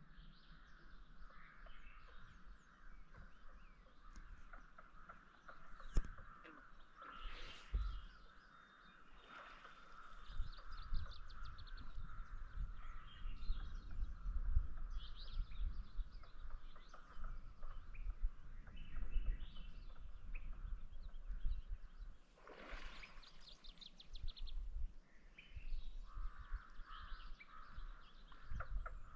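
Wild birds calling and singing, with a steady background hum of distant calls and a low, uneven rumble underneath. There are two sharp knocks about six and eight seconds in, and a louder burst of calls a little past the two-thirds mark.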